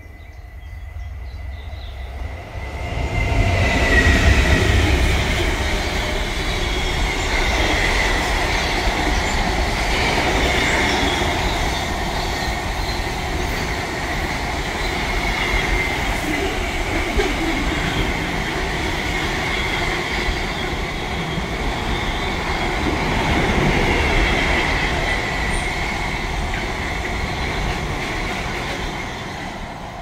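Loud, steady rumbling noise with a thin high squealing tone over it, building about three seconds in and fading near the end.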